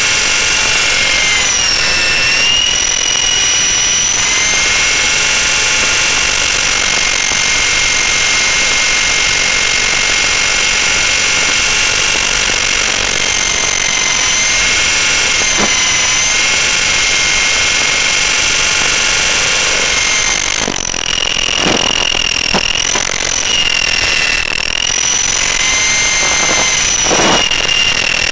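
Electric RC helicopter's motor and drivetrain whining steadily in flight, heard from on board, with the pitch dipping briefly a few times. A few short rushing sounds come near the end.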